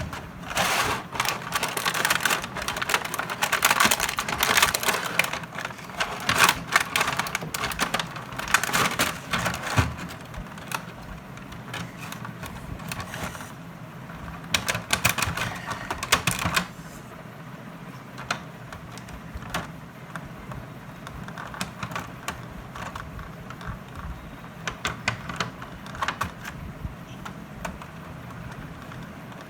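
Rustling and rapid clicking of packaging being handled and pulled open, dense for about the first half, then thinning to scattered clicks.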